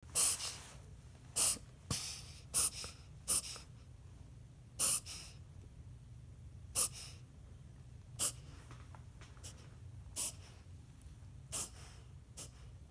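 A Malshi (Maltese–Shih Tzu cross) dog having what the owner calls reverse hiccups: about ten short, sharp breathy spasms, a second or two apart, the later ones fainter.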